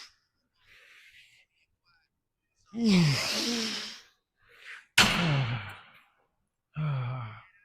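A man letting out three heavy voiced sighs, each falling in pitch, with a faint breath before them.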